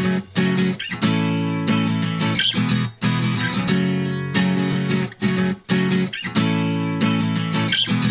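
Background music led by guitar, chords struck in a steady rhythm with short breaks between them.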